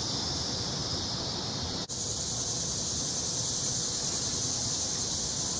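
A steady high-pitched hiss that cuts out for an instant about two seconds in.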